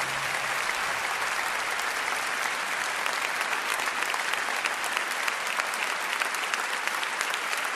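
Audience applauding, a steady dense clapping, as the last low note of the music dies away in the first moment.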